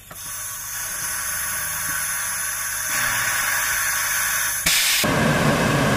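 Pressure cooker venting its steam through the release valve after cooking: a loud, steady hiss that grows stronger about five seconds in, when a rush of steam buffets the microphone.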